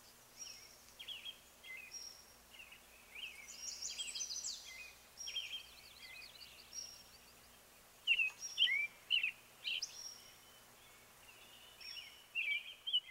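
Several songbirds singing: short chirps, slurred whistles and a brief trill, with a run of louder calls about eight seconds in.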